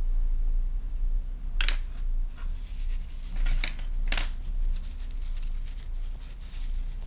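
A watercolour brush worked in a metal pan palette and a paper tissue handled and dabbed: a few short scratchy clicks and rustles in the middle, over a steady low hum.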